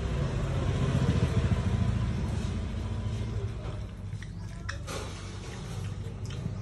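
A low, steady engine rumble, loudest for the first three seconds or so and then fading, with a few sharp clicks in the second half.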